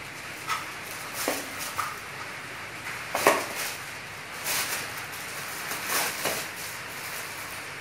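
A plastic toy shopping cart clattering and knocking on a concrete floor as cats climb and scramble over it: a string of separate light knocks, the loudest about three seconds in, over a steady hiss.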